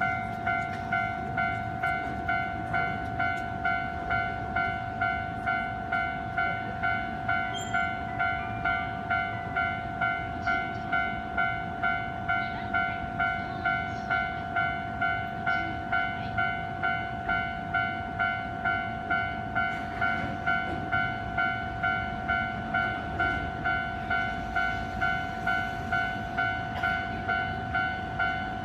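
Japanese level-crossing warning bell ringing continuously, a bright electronic ding repeating about one and a half times a second, with a low rumble of rail traffic underneath.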